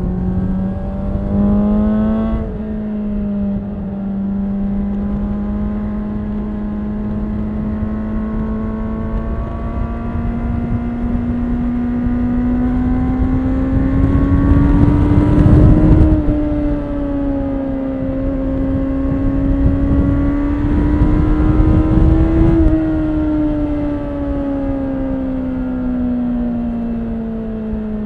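2013 Honda CBR600RR's inline-four on its stock exhaust, heard from the rider's backpack while riding. The engine rises briefly and drops sharply about two seconds in, as at a gear change. It then pulls up slowly in one gear to its loudest point about halfway through, dips, climbs a little again, and falls away steadily over the last few seconds as the bike slows.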